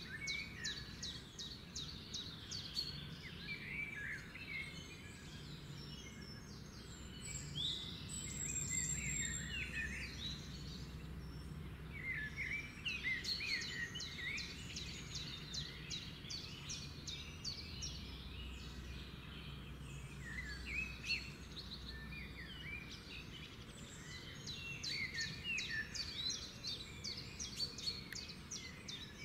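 Many small birds chirping and twittering together, the chorus swelling and easing in waves, over a steady low hum.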